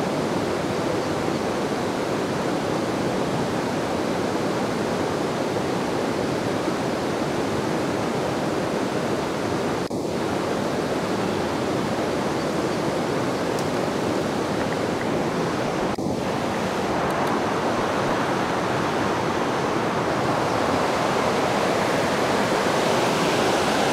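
River rapids rushing steadily, a constant roar of water that thins for an instant twice.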